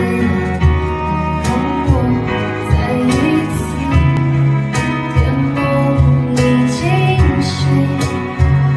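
Live band playing a slow Mandarin pop song on violin, acoustic guitar and keyboard, with a steady beat and a woman singing.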